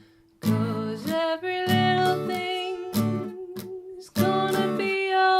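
Acoustic guitar strummed in a reggae offbeat rhythm, short choppy chord strokes at a steady pace, with a woman singing long held notes over them. It starts after a brief moment of near silence.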